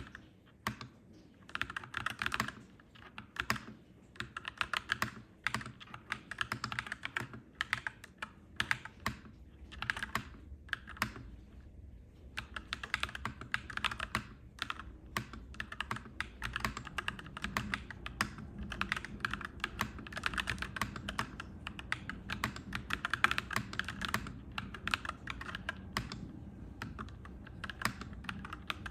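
Clacky mechanical keyboard being typed on in quick runs of key clicks, with brief pauses between bursts. A low steady rumble sits underneath, stronger in the second half.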